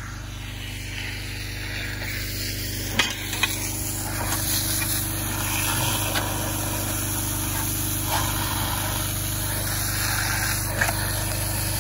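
Pressure washer running, its high-pressure water jet hissing against the steel track and undercarriage of a Link-Belt log loader, over the steady drone of an engine. Two sharp clicks come about three seconds in.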